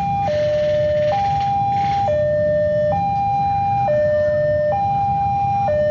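Railway level-crossing warning alarm sounding its steady two-tone hi-lo signal, switching pitch about once a second, the sign that the crossing is closed for an approaching train. A low rumble of waiting motorcycle traffic runs underneath.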